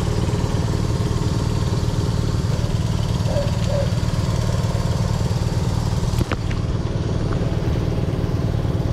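Wind buffeting the microphone: a steady low rumble, with one sharp click about six seconds in.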